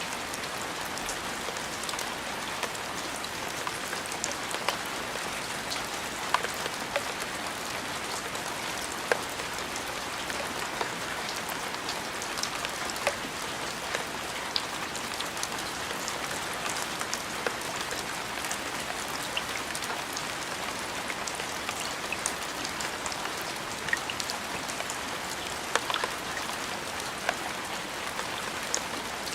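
Steady rain falling on a surface, a constant hiss with scattered distinct drop ticks.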